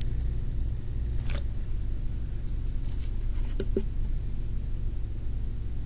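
A steady low hum with a few faint clicks and rustles scattered through it.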